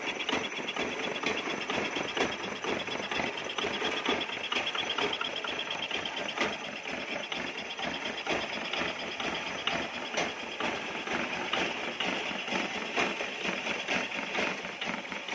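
Kubota 10 hp single-cylinder diesel engine running steadily with a rapid knocking clatter.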